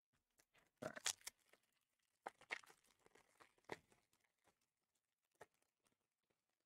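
Foil wrapper of a Panini Prizm football card pack crinkling and tearing as it is pulled open. The sound comes in a few short bursts, the loudest about a second in.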